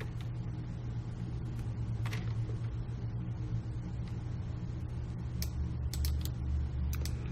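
Sparse computer keyboard and mouse clicks over a steady low hum.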